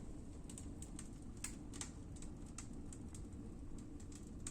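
Wood stove burning dry willow with a strong draft: a steady low hum from the firebox, with irregular sharp crackles of the burning wood.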